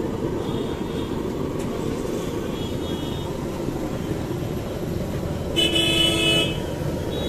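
Steady low rumble of street traffic, with a vehicle horn honking once, just under a second long, near the end.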